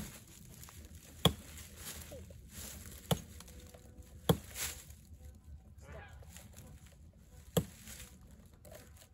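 Five sharp wooden knocks at uneven intervals as a small hand tool chops at a standing tree trunk, the first strike the loudest.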